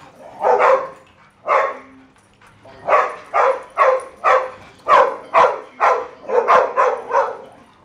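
Dog barking over and over: a few barks, a short pause about two seconds in, then a fast run of barks about three a second.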